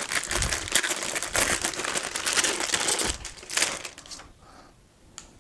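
Crinkling of a metallic anti-static bag being opened and handled to take out a hard drive, dying away about four seconds in, with a faint click near the end.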